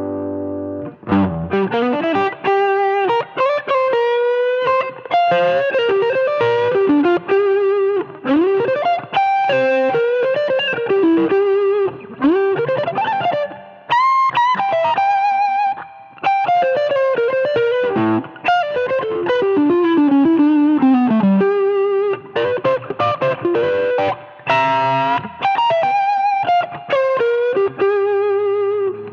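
Electric guitar played through a Kardian 'Serotonin' overdrive pedal, a Tube Screamer-style overdrive with a warm, mildly driven tone. It plays single-note lead phrases full of string bends and vibrato, with short pauses between phrases.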